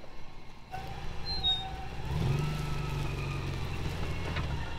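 Small four-wheel-drive pickup's engine running at low speed as the truck crawls over a rough trail, rising in pitch about two seconds in and then holding steady.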